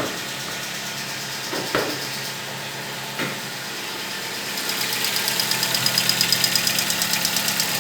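Volkswagen Gol G4's four-cylinder engine idling, with a fast, even, light ticking from the hydraulic valve lifters that gets louder about halfway through: the lifters still filling with oil on the first start of the day, which the owner takes as normal. Two dull knocks come in the first few seconds.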